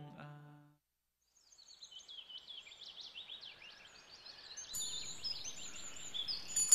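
Music fading out, then after a moment of silence a stretch of many quick high-pitched bird chirps over faint outdoor ambience.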